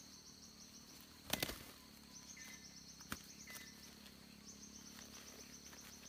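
Insects trilling faintly in repeated pulsed bursts over a steady high hum. About a second and a half in, a short loud scuffle of flapping and rustling as a decoy red junglefowl rooster is grabbed by hand.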